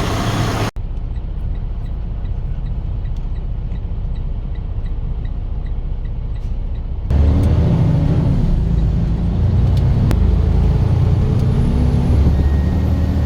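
Semi-truck engine running, a steady low rumble, with a faint regular ticking in the first half. About seven seconds in it becomes louder, the engine's pitch shifting as it works.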